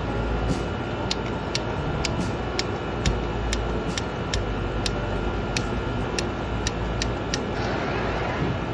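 Steady rushing noise of a handheld torch flame heating a copper water pipe, over the hum of a running air-conditioning unit. From about a second in until near the end, a sharp tick comes about twice a second.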